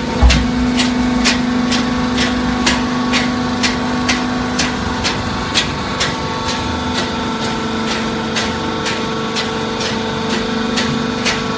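Industrial hydraulic cardboard baler running: a steady hum from the hydraulic power unit with a regular clicking about twice a second that grows fainter in the second half, and a low thud just after the start.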